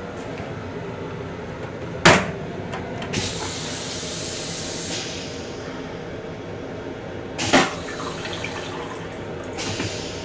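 Stainless-steel vacuum toilet on an M7 commuter railcar flushing. A loud sudden suck comes about two seconds in, followed by a couple of seconds of hissing rinse water. A second loud suck and hiss follow about five seconds later. The moving train rumbles steadily underneath.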